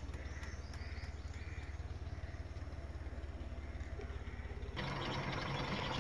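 Steady low hum with faint, repeated bird chirps; about five seconds in the sound abruptly becomes louder and noisier.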